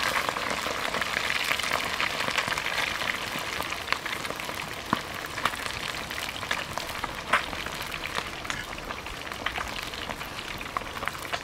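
Hot oil sizzling steadily around whole fish deep-frying in a pan, with scattered sharp pops and crackles; the sizzle eases slightly toward the end.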